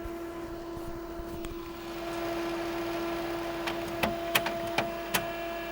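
HP colour laser printer running its calibration cycle with freshly greased cartridge gears: a steady motor hum, a whir that builds about two seconds in, and a few light clicks near the end. This is its normal working sound, without whistles or grinding.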